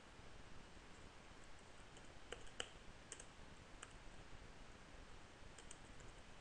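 A handful of faint, scattered computer-keyboard keystrokes over near-silent room hiss.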